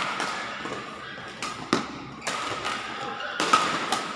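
Badminton rally in a large echoing hall: rackets hitting the shuttlecock in sharp cracks about once a second, the loudest about three and a half seconds in as a player jumps for the shot, with sneakers squeaking on the court mat between hits.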